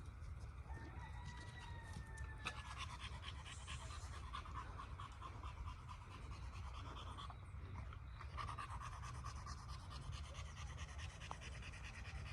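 A person breathing hard, catching their breath after a steep uphill climb, faint against a steady low rumble.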